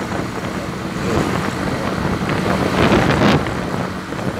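Yamaha Factor 150 single-cylinder motorcycle engine running steadily at highway cruising speed, with wind rushing over the microphone.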